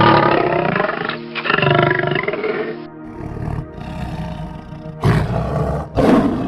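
A large wild animal roaring over background music: one long call with a wavering pitch, then two short, loud roars near the end.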